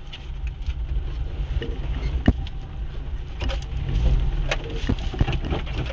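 Car engine and body rumbling at low speed while the car is turned around on a rough dirt track, with scattered sharp knocks and clicks, the loudest about two seconds in.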